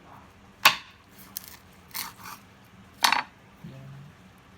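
Knife chopping a long-spine seabream into pieces on a cutting board: three sharp chops about a second apart, with a lighter knock just after the second.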